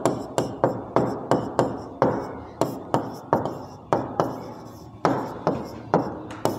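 Marker pen writing on a whiteboard: a run of sharp taps and short scratches, about three a second, as each stroke meets the board.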